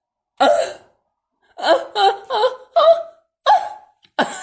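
A man's short strained grunts and gasps of effort, about six in a row with a breathy exhale near the end, as he forces the arm of a stiff cam-action door closer against its heavy spring tension.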